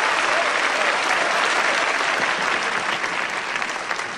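A large crowd of men applauding steadily, with a few voices calling out early on beneath the clapping; the applause dies down near the end.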